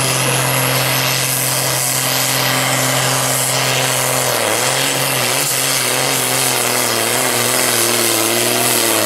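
Turbocharged International Harvester 1066 pulling tractor's diesel engine running flat out under load as it drags the weight sled. The pitch is steady at first, then starts to waver up and down about four seconds in.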